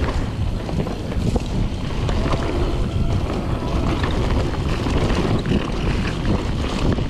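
Mountain bike descending a trail: wind buffets the helmet or chest-mounted action-camera microphone in a steady loud rumble, with tyre roar and frequent small clicks and rattles from the bike over the terrain.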